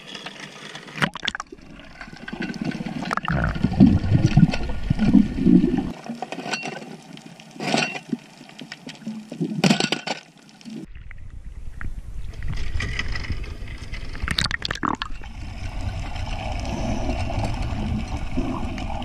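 Water sloshing and bubbling around an action camera at and below the sea surface, with scattered sharp clicks and knocks. The loudest, roughest stretch comes about three to six seconds in, and from about eleven seconds in a steadier low underwater rumble takes over.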